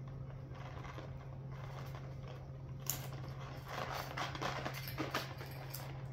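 Light metallic clicks and rattles of a gold chain being handled and hooked onto the small D-rings of a lipstick case, coming thickest about halfway through. A steady low hum runs underneath.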